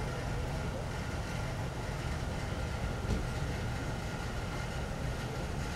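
Steady low rumble of idling vehicles.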